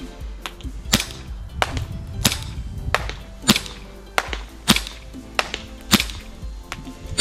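Smith & Wesson M&P9 Performance Center gas blowback airsoft pistol (VFC for Umarex) firing in semi-auto: about ten sharp cracks at a steady pace of roughly one and a half shots a second, each with the snap of the blowback slide cycling.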